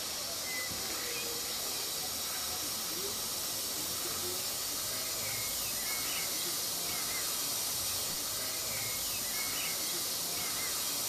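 Steady hiss of steam from a standing SNCF 141 R Mikado, an oil-fired 2-8-2 steam locomotive.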